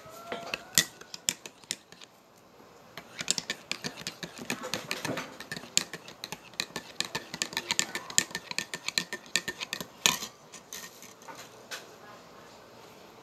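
Metal teaspoon clinking against the inside of a ceramic mug while stirring coffee, in runs of quick, irregular clinks that thin out and stop about ten seconds in.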